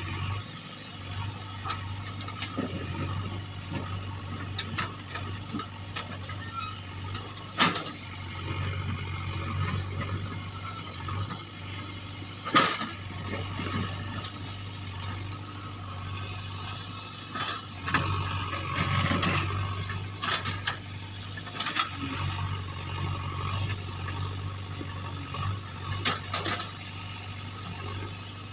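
JCB backhoe loader's diesel engine running steadily while it digs, with a few sharp metallic clanks from the bucket and arm and a stretch of rattling about two-thirds of the way in.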